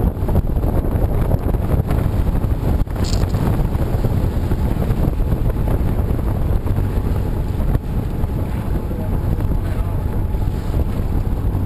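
Wind buffeting the microphone on a sailing yacht under way, with water rushing along the hull beneath it.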